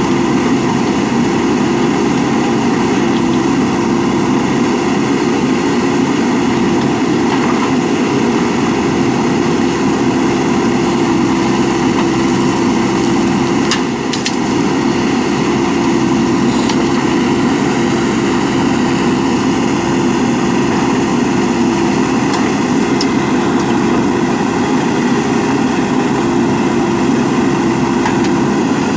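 JCB 3DX backhoe loader's diesel engine running steadily at an even speed, with a couple of faint clicks near the middle.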